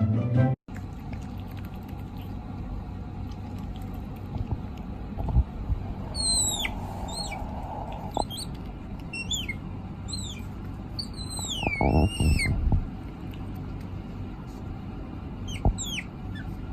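A small animal's high-pitched squeaky calls, each sweeping down in pitch, in a run of several from about six seconds in and a couple more near the end, over steady background noise and a few low thumps.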